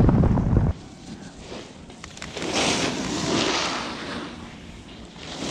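Wind buffeting a helmet camera's microphone while skiing downhill, a loud low rumble that cuts off abruptly under a second in. After that, a much quieter hiss swells for a second or two and fades.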